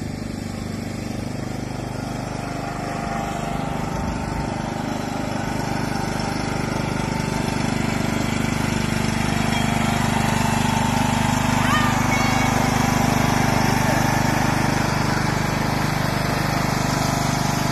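John Deere riding lawn mower engine running steadily, getting louder as the mower drives closer.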